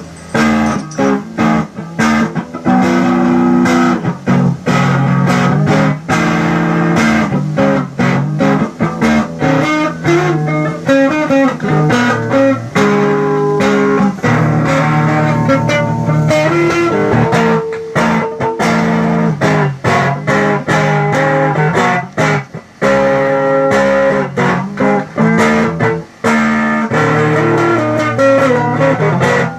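Electric guitar played through an effects unit under test, running through picked notes and strummed chords with brief pauses.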